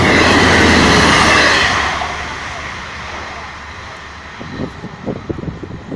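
Class 158 diesel multiple unit passing close at speed over a level crossing: a loud rush of wheels on rail and engine noise that peaks in the first two seconds, then fades as the train draws away. Near the end, irregular gusts of wind buffet the microphone.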